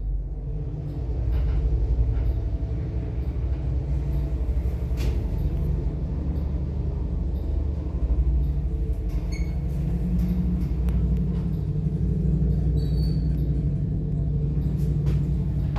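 KMZ freight-passenger elevator car travelling in its shaft: a steady low rumble and hum, with a few light clicks and brief faint squeaks along the way.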